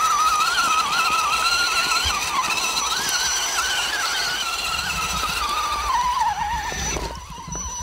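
Electric scale RC 4x4 trucks' motors and geared drivetrains whining under throttle, the pitch wavering up and down as they crawl through mud and slush; the whine eases off about seven seconds in.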